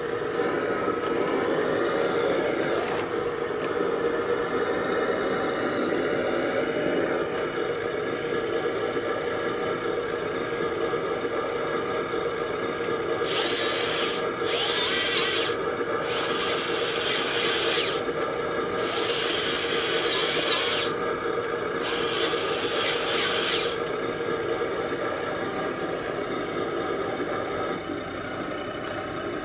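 Radio-controlled model bulldozer running, with a steady mechanical whine throughout. Several bursts of harsh rasping noise come in the middle stretch.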